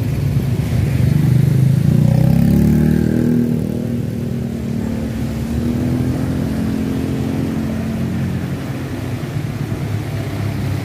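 A motor vehicle engine running close by. It rises in pitch over the first two or three seconds, then runs on more steadily.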